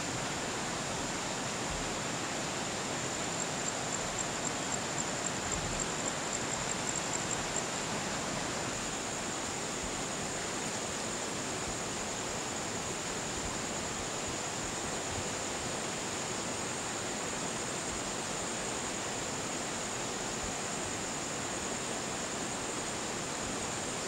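Steady rush of flowing water, such as a terrace irrigation stream or small waterfall, with a thin high whine above it that pulses for a few seconds near the start.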